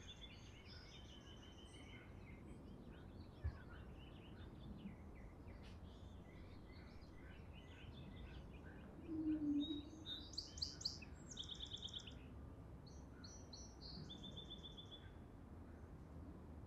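Faint outdoor birdsong: several small birds chirping and trilling in short repeated notes, louder around the middle. A brief low sound comes about nine seconds in.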